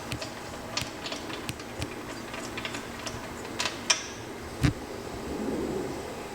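Irregular light clicks and taps of hand tools and small parts being handled during engine head assembly, over a steady background hum.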